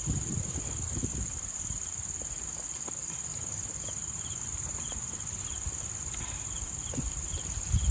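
Steady, high-pitched insect chirring, with a fainter chirp repeating about twice a second, over a low background rumble. A short sharp knock comes near the end.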